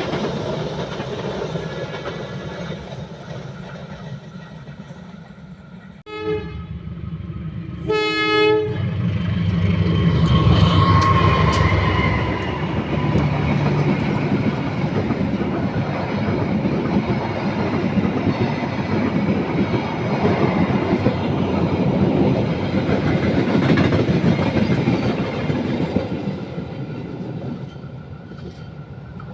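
A train sounds two short horn blasts, then passes close by, its wheels rumbling loudly on the rails and fading away near the end.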